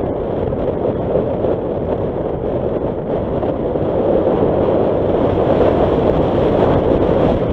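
Nissan Qashqai driving along a gravel dirt track: steady road noise from the tyres on loose stones mixed with wind buffeting the microphone, with no clear engine note. It grows slightly louder in the second half.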